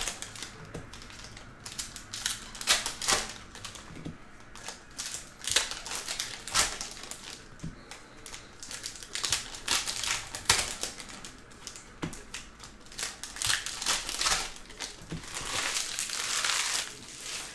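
Upper Deck SP Authentic hockey card packs being opened by hand: a run of sharp clicks and rustles as wrappers are torn and cards are handled and squared into stacks, with a longer crinkling of a wrapper near the end.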